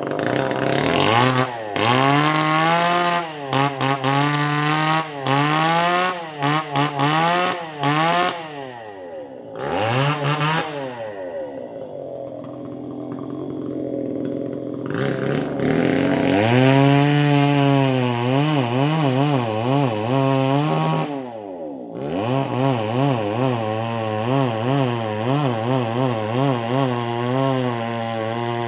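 Two-stroke chainsaw running, its throttle blipped over and over so the revs rise and fall about once a second. Midway it drops to a lower, quieter speed for a few seconds, then is held at high revs, dips briefly, and runs on steadily.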